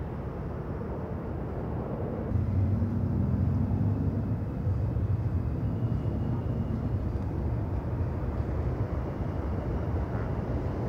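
Low, steady rumble of distant vehicles, growing louder about two seconds in and holding.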